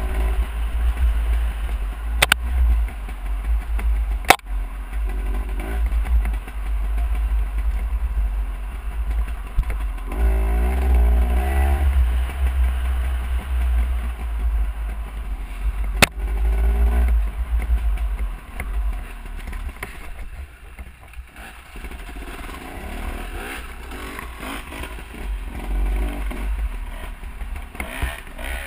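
Dirt bike engine revving and easing off over heavy wind rumble on the microphone, with a few sharp knocks. The revs climb about ten to twelve seconds in, and it runs quieter from about twenty seconds.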